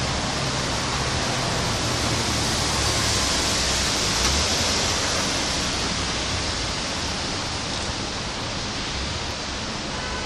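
Steady rain falling on street trees and broad leaves, an even hiss that swells a few seconds in and eases slightly toward the end. A low rumble sits underneath during the first few seconds.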